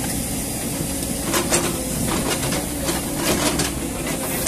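Diesel engine of a tracked JCB excavator running steadily, with a few brief knocks over it.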